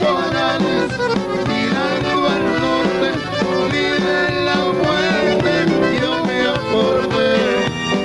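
Live Tejano band music led by a button accordion, with guitar, bass and drums keeping a steady dance beat.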